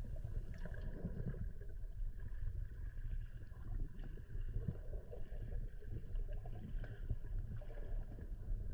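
Muffled underwater ambience picked up by the camera in its housing: a steady low rumble of moving water with scattered faint clicks.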